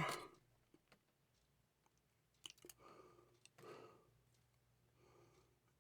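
Faint small clicks of pin-tumbler lock parts being handled while the pin stack from chamber 4 is taken out, with a pair of sharper clicks about halfway through and a few soft breaths.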